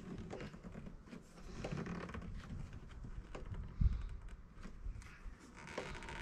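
Hands working a chrome window trim strip loose along the top of a car door: scattered small plastic-and-metal clicks and rustles, with one louder knock about four seconds in.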